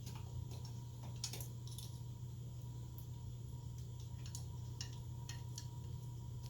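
Faint, scattered small clicks of wire terminals being worked loose from a plastic power-adapter connector by hand, over a steady low hum.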